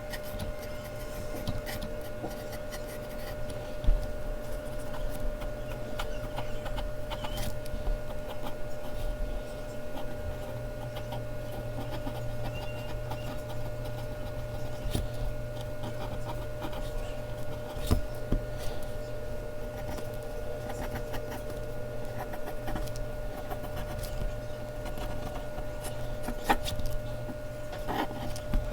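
Mechanical pencil scratching and rubbing across Bristol paper as a drawing is shaded, with a few sharp taps along the way and a steady hum underneath.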